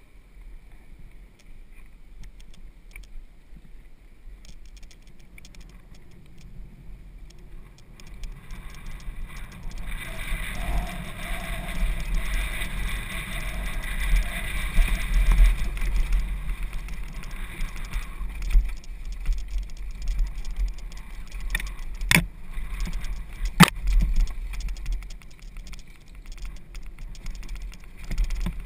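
Downhill mountain bike rolling and rattling over a dirt trail, with wind rumbling on the microphone and the chain and frame clattering. It gets louder from about ten seconds in as speed picks up, with two sharp knocks from hits on the rough ground a little over twenty seconds in.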